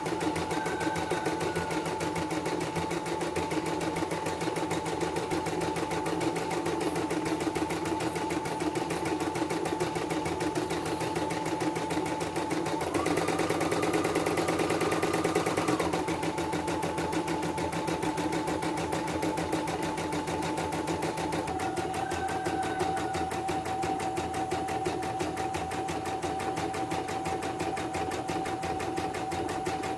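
CNY portable embroidery machine stitching a design, its needle working in rapid, even strokes over a steady motor whine. The pitch steps up and gets louder for about three seconds near the middle, then settles a little lower past twenty seconds in. This is a test run after servicing, with the machine running smoothly and no thread breaks.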